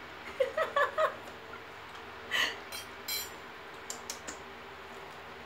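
A few short muffled vocal sounds about half a second in, then a brief rustle and scattered light clicks of things being handled, over a steady low hum.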